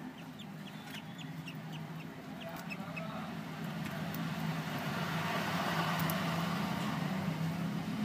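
Budgerigar chicks in the nest box giving short, quick chirps under the brooding hen, over a low steady hum that grows louder through the second half.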